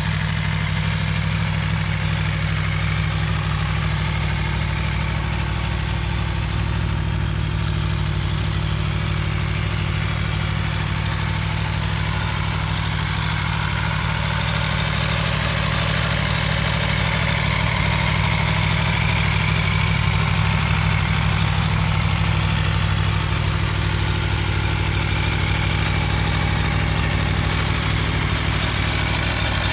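Aprilia Tuono V4 1100 RR's 65-degree V4 engine idling steadily, with no revs.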